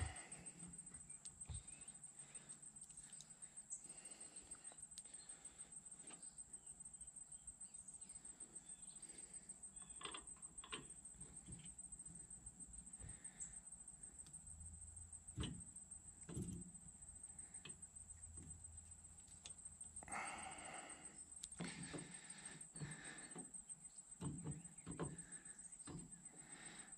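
Faint, scattered clicks and taps of a steel U-joint cross and its bearing caps being handled and fitted by hand into a drive-shaft yoke, over a steady high-pitched whine.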